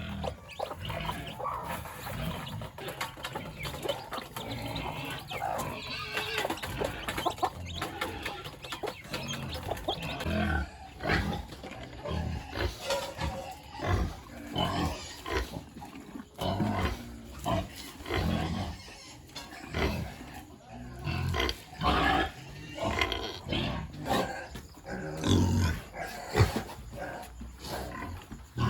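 Domestic pigs grunting in short, irregular bursts, more often and more sharply in the second half.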